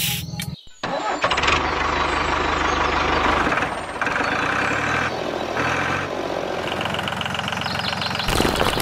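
Tractor engine starting up about a second in, then running steadily.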